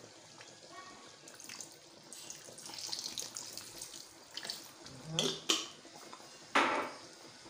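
Liquid running and splashing for a few seconds, followed by a few short clattering bursts.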